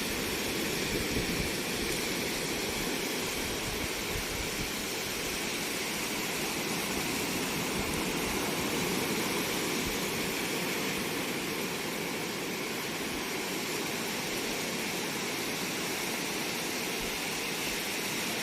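Sea surf on a rocky shore: a steady, unbroken rushing of waves.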